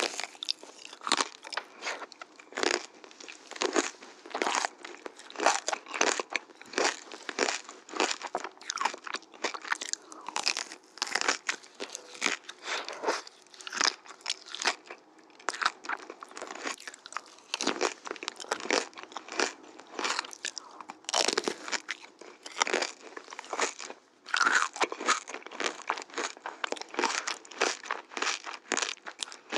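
Close-miked crunching bites and chewing of chocolate-coated frozen candy ice cream bars: crisp cracks of the chocolate shell come several a second, with a brief pause about 24 seconds in.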